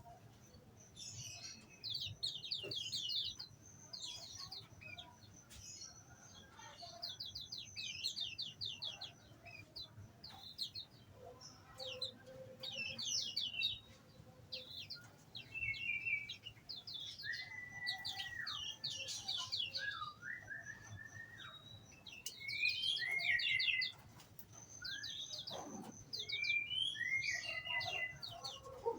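Small songbirds in an aviary chirping and singing: bouts of fast, high trills again and again, with a few lower whistled notes sliding up and down partway through.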